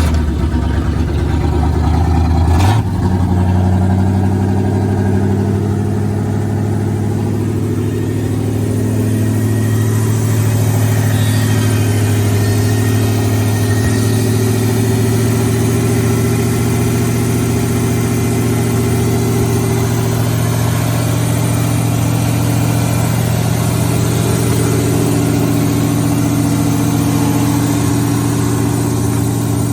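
1982 Chevrolet C20's 350 small-block V8 running steadily just after a cold start, with a click about three seconds in. It is idling high, which is put down to missing or disconnected vacuum lines.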